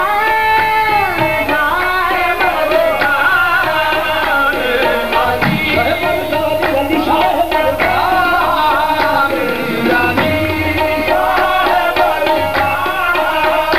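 Live qawwali music: harmonium melody with tabla drumming and singing voices, at a steady loud level.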